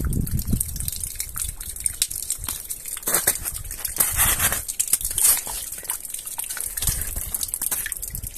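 Wet, crackling noise of thawing snow and slush, full of small clicks and trickles, with steps through it.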